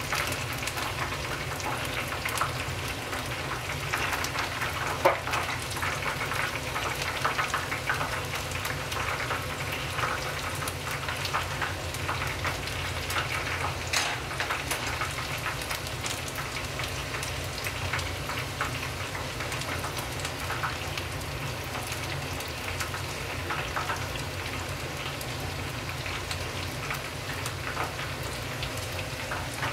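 Karaage (Japanese fried chicken) deep-frying in a pot of hot oil: a steady sizzle full of small crackles and pops, with a sharper pop about five seconds in.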